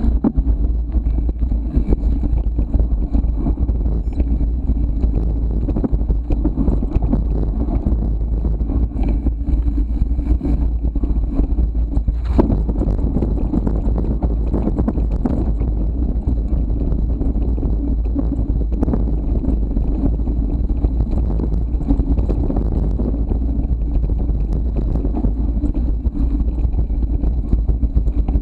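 Ride noise from an action camera on a mountain bike riding a dirt and gravel trail. Steady wind buffeting on the microphone mixes with tyres crunching on the ground, and the bike rattles and knocks over bumps, once more sharply about 12 seconds in.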